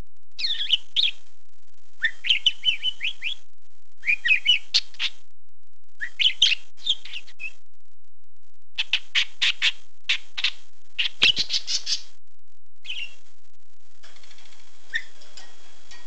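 Pet budgerigar chattering in short bursts of high chirps and gliding warbles, with brief pauses between phrases. Near the middle comes a run of quick, sharp chirps.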